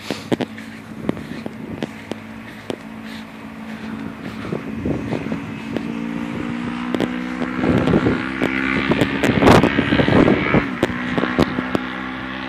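Gusting wind buffeting the microphone, with frequent short cracks and flaps, over a steady motor-like drone that builds from about a third of the way in and is loudest about two-thirds through.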